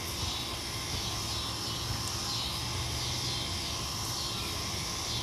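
Steady background noise: an even hiss with a low hum underneath.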